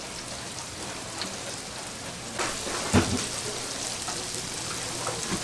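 Doughnuts deep-frying in a vat of hot oil: a steady hiss, with one short knock about three seconds in.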